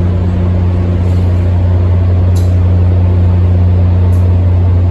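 Amtrak Downeaster diesel locomotive idling at the platform, a loud, steady low hum with no change in pitch.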